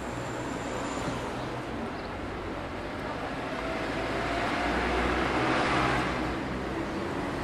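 City street traffic noise, with one vehicle passing close, loudest about five to six seconds in.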